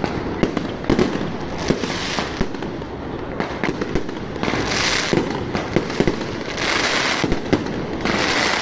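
Fireworks and firecrackers going off in a dense run of sharp cracks and pops. About halfway through, and twice more after that, come stretches of hissing about a second long.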